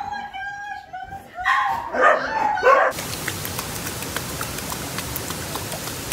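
Excited dogs yipping and barking in loud pitched bursts, then about three seconds in an abrupt change to a steady hiss of flowing, splashing water.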